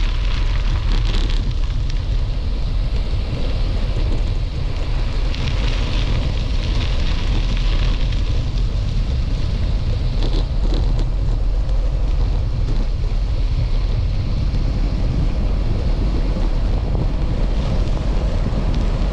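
Wind buffeting an action camera's microphone while it moves along a road: a loud, steady low rumble with a hiss above it that swells now and then.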